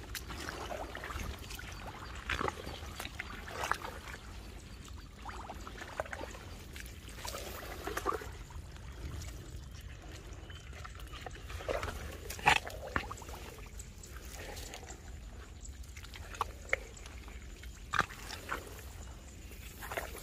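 Hands digging into wet paddy mud at a field-crab burrow: scattered squelches, slaps and small splashes over a steady low rumble, with a sharper slap about twelve seconds in.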